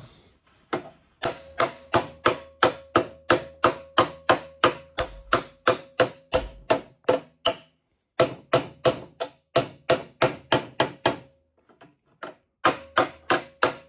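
A small hammer tapping the bent bottom flange of a Volkswagen Super Beetle door back into shape against a scrap steel plate used as a dolly. It goes in quick, even blows, about three to four a second, each with a short metallic ring. The blows come in three runs, broken by two short pauses.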